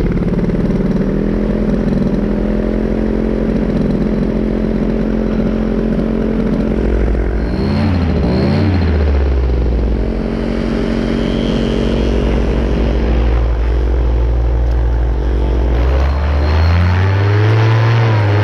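Powered paraglider's engine and propeller running loud and steady at high power. The engine note dips and comes back up about eight seconds in, and climbs again near the end.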